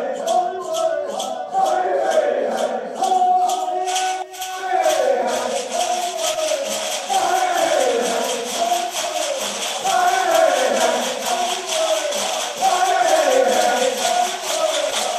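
Chickasaw stomp-dance song sung as call and answer, with two men leading and the dancers chanting back in repeated falling phrases. Shaker rattles keep a steady beat under the voices.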